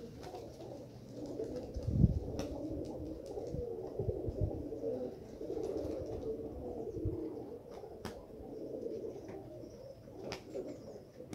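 Domestic pigeons cooing in a continuous low murmur, with a few sharp clicks and low thumps over it.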